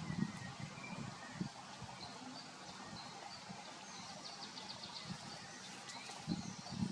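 Small birds chirping, with a rapid trill about four seconds in and a short rising call near the end, over a steady outdoor hiss.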